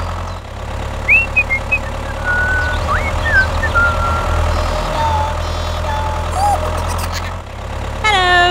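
Tractor engine running steadily, a low drone, with short high chirps over it.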